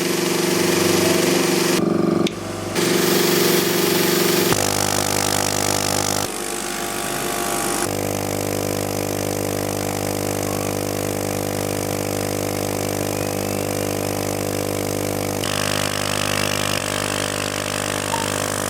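CNC machine running steadily with a motor hum, its sound changing abruptly a few times: about two seconds in, near five seconds, near six and eight seconds, and again near the end.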